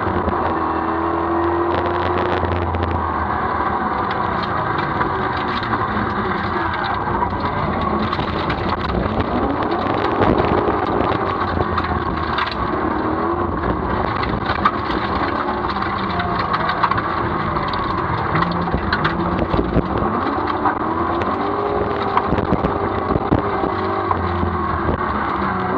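Rover SD1 rally car's V8 engine heard from inside the cabin, revving up and falling back repeatedly under hard driving. Frequent sharp clicks and knocks run over the engine sound, thicker in the second half.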